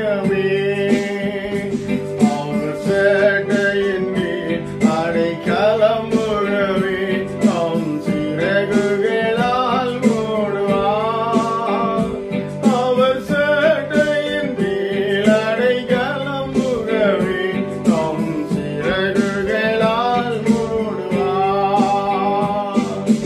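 A man singing a worship song over instrumental backing with a steady beat.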